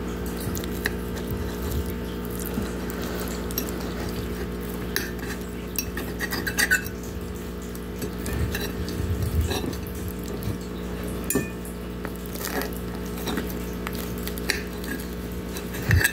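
Metal fork cutting pizza against a ceramic plate, with scattered clinks and scrapes over a steady low hum.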